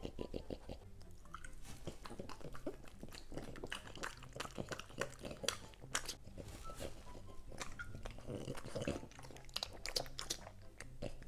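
French bulldog biting and chewing raw green vegetables: a steady run of crisp crunches and wet mouth smacks.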